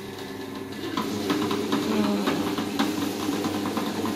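Table-top wet grinder running, its stone rollers grinding soaked rice into idli batter: a steady motor hum that grows louder about a second in, with irregular ticking throughout.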